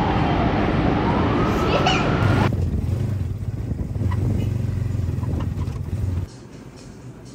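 Street traffic noise with a tone that dips and then rises in pitch. It is followed by the steady low drone of a motorcycle-and-sidecar tricycle's engine as it rides, which cuts off sharply about six seconds in.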